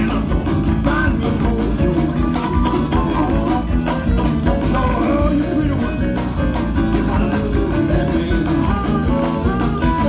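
Live blues band playing with keyboard and a steady drum beat.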